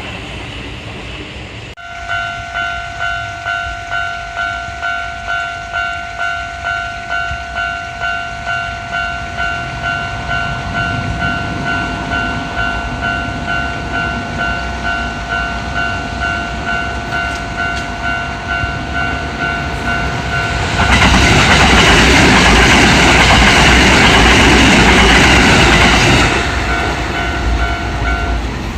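Japanese level-crossing warning bell ringing its repeated electronic "kan-kan" tone, starting about two seconds in and stopping shortly before the end. About twenty seconds in, a train passes over the crossing with a loud rushing rumble lasting about five seconds.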